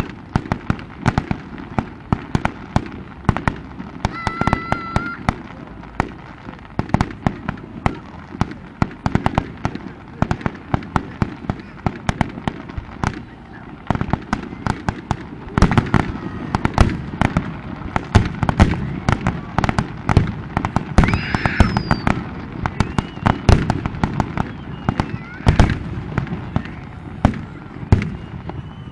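Aerial fireworks: a dense, rapid crackling and popping of many shell bursts, with heavier, louder bangs coming thicker from about halfway through.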